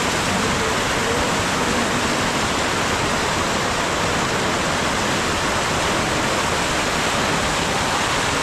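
Ganges river water rushing around a raft, a steady, even rush with no break.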